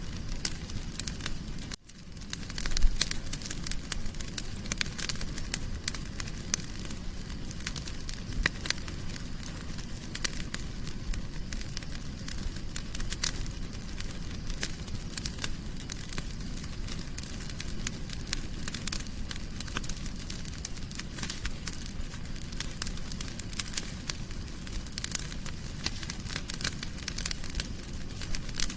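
Wood fire crackling in a fireplace: a low rumble of flames with frequent sharp pops and snaps. The sound drops out briefly about two seconds in, then comes back with a louder flare of crackling.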